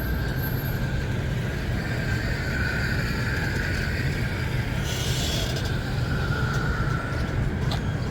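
Steady city traffic rumble with a high, drawn-out squeal over most of it and a short burst of hiss about five seconds in.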